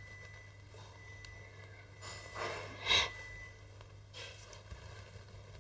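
Quiet handling of a coma corrector being threaded onto an astronomy camera, with a short sharp breath through the nose about three seconds in, the loudest sound, and a softer one a second later.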